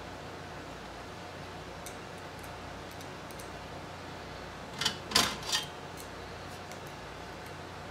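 Three sharp metallic clicks about five seconds in, from a screwdriver and screw against the sheet-steel shield on the back of an LCD panel, with a few faint ticks before them. A steady low hum runs underneath.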